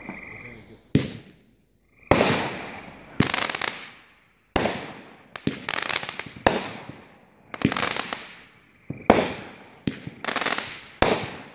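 A Cutting Edge 'Rapacious' 500-gram consumer firework cake firing shot after shot, about one a second. Each aerial break trails off in a rapid spatter of crackling stars.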